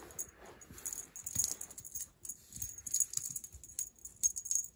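Cat wand toy's orange streamer rustling in quick, uneven bursts as it is flicked about.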